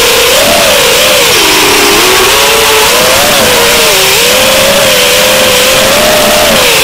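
FPV quadcopter's electric motors and propellers whining, heard from a camera mounted on the drone itself. The pitch dips and climbs several times as the throttle changes, over a steady hiss of wind and propeller wash.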